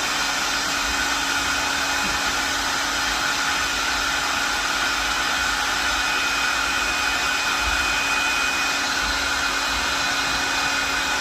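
Electric air blower inflating a giant balloon, running steadily with a constant whirring hum.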